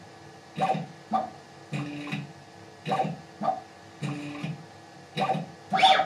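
CNC machine's axis stepper motors whirring through a repeating touch-probe digitizing cycle. Two short whirs are followed by a steadier hum, and the pattern repeats about every two and a half seconds as the stylus touches the surface, lifts and steps on.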